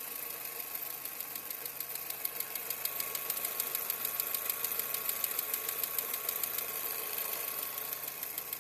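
Skoda Fabia 1.4 MPI petrol engine idling hot, with a rapid, even ticking from under the valve cover. The owner takes it for a hydraulic valve lifter or a valve, possibly a stretched timing chain, and it appears only once the engine is fully warmed up.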